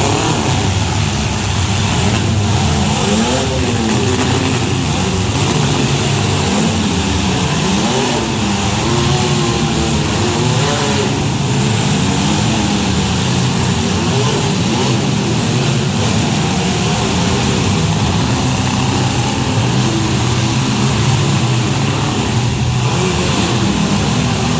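Several compact demolition-derby cars' engines revving hard together, pitches rising and falling in waves over a dense, loud, constant roar.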